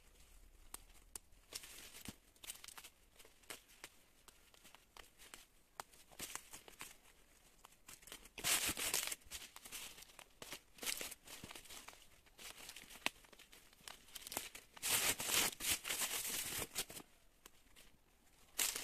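Old strawberry leaves and weeds being torn off by gloved hands, rustling and crackling against the plastic mulch film. The sound comes in irregular bursts with scattered clicks, with a longer stretch of rustling about halfway through and another near the end.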